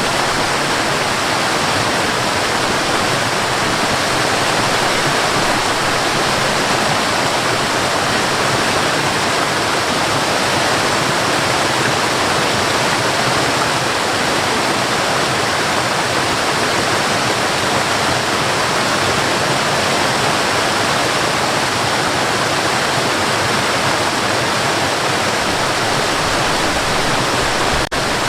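Waterfall pouring steadily: a full, unbroken rush of falling water that drops out for an instant near the end.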